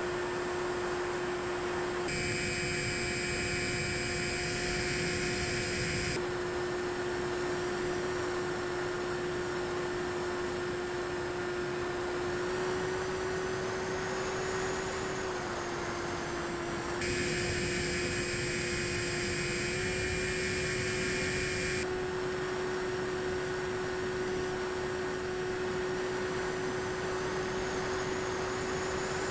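Steady drone of the Bix3 model plane's electric motor picked up on board, a single hum that wavers a little in pitch, over a constant hiss. High thin electronic tones cut in and out twice.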